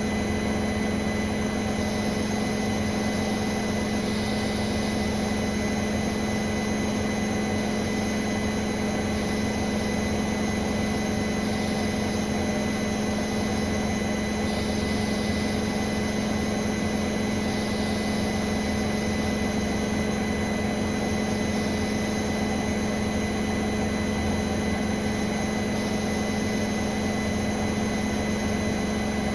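Bosch Serie 4 WAN28281GB washing machine on its final high-speed spin with a balanced load: a steady hum with a thin, high squeal held over it. The owner suspects the drum bearings or the drive belt, since the door seal is clear of the drum.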